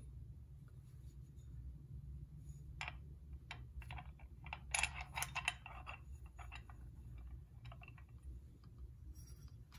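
Light metal clicks and taps of a VEVOR go-kart torque converter's driver pulley parts (the sheave plate and toothed clutch bushing) being fitted together by hand, in a scattered cluster about halfway through, over a low steady hum.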